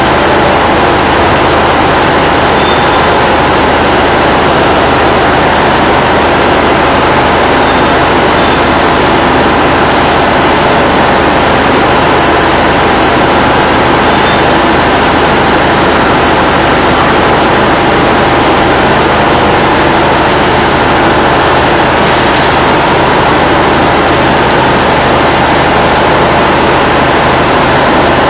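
Loud, steady drone of heavy industrial machinery with a low hum underneath, unchanging throughout.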